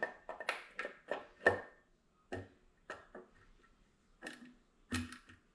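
Light metallic clicks and taps at an uneven pace as an aluminium water pump is seated on an engine's front cover and its bolts are started, some with a short metallic ring.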